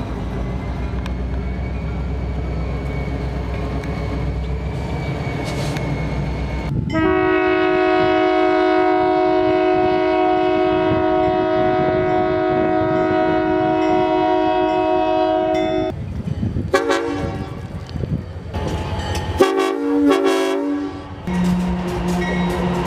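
Diesel locomotives: a low engine rumble for the first several seconds. Then a multi-chime air horn sounds one long, steady blast of about nine seconds. Several shorter, broken horn blasts follow near the end.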